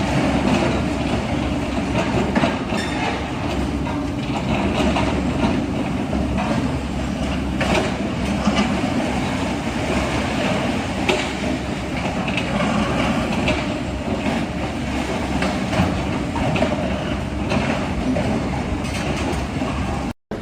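A steady, heavy mechanical rumble with scattered clanks and rattles, of the kind a large machine or rail vehicle makes while running, cut off abruptly at the end.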